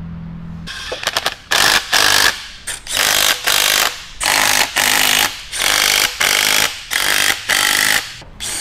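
Cordless impact driver hammering the end plate flange bolts tight on a Battioni rotary vane vacuum pump. It goes in a run of about nine short bursts, roughly one a second, starting about a second in.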